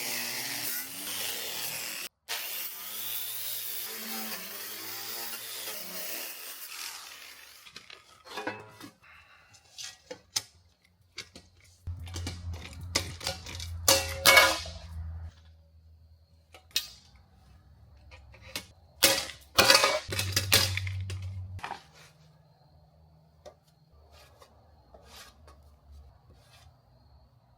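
Wire brush scrubbing an aluminium door panel to clean it, a continuous scratchy noise for about the first seven seconds. After that come scattered knocks and short rasps of handling and brushing.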